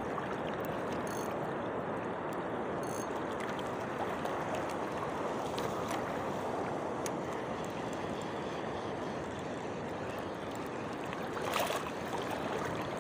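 Steady rush of choppy sea water sloshing close around a wader, with a brief louder swash near the end.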